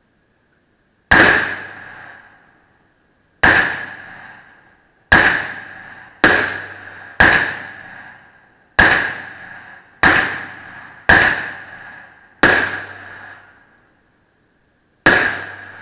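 Glock 19 Gen4 9mm pistol fired ten times at an uneven, deliberate pace, shots about one to two and a half seconds apart. Each shot rings out in the reverberant indoor range.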